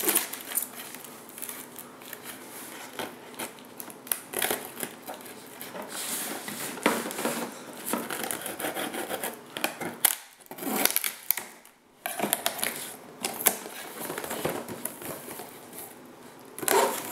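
A kitchen knife cutting through the tape on a cardboard box: irregular scratching, scraping and tapping of the blade on the cardboard, with a short lull about ten seconds in. Near the end the cardboard flaps are pulled open.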